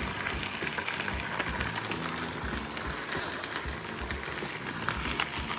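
Bicycle tyres rolling over a hard-packed gravel trail: a steady, crackling crunch of grit under the wheels, with occasional low thumps.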